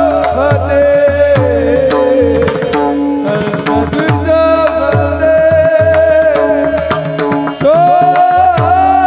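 Devotional kirtan music: a held melody over a steady hand-drum beat, with singing returning near the end.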